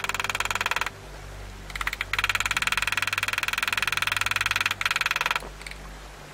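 Rapid, even ticking of a steel graver being driven into a steel plate while engraving. It pauses about a second in, starts again about two seconds in and stops about five and a half seconds in.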